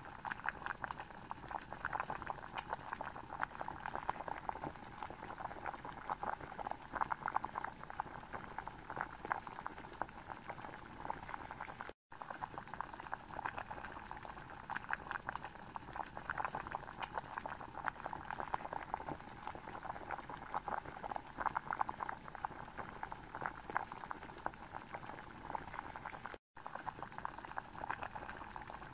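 Thick butter chicken curry sauce bubbling and popping in a frying pan, a dense, steady crackle of small bursting bubbles. It breaks off briefly twice, about twelve seconds in and near the end.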